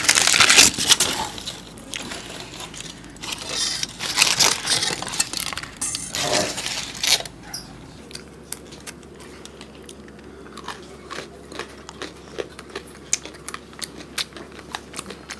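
Crisp wafer-filled chocolate bar (Cadbury Dairy Milk Crispello) being bitten and chewed close to the microphone: a few loud crunching bites in the first seven seconds, then a long run of small crackling clicks of chewing.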